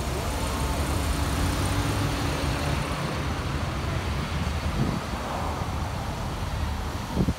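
Road traffic: vehicles passing on the street in a steady low rumble, with a brief thump near the end.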